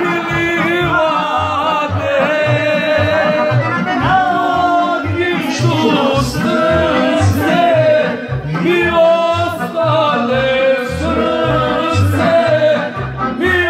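A man singing into a handheld microphone over an amplified backing track with a regular pulsing bass line.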